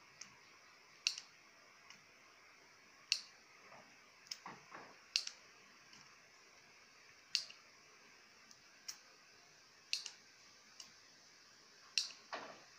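About a dozen sharp, irregular clicks and taps from soldering tools working on a CRT television's circuit board as two capacitors are desoldered. A couple of them come with a short falling swish.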